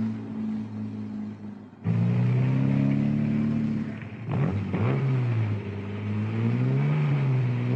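Racing car engine revving, its pitch rising and falling repeatedly as it changes gear and speed. An abrupt cut about two seconds in brings in a louder engine.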